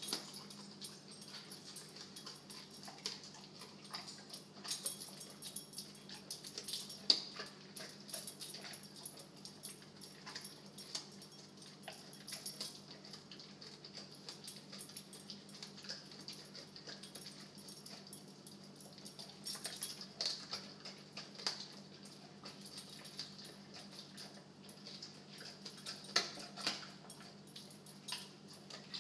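American bulldog chewing a twisted bully stick: irregular wet gnawing, with short clicks and crunches of teeth on the chew, the sharpest about seven seconds in. A steady low hum runs under it.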